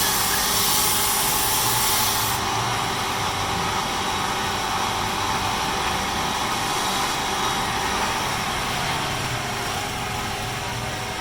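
Wood lathe running steadily with a motor hum. A loud high hiss of a tool working the spinning wood stops about two seconds in, and the lathe runs on.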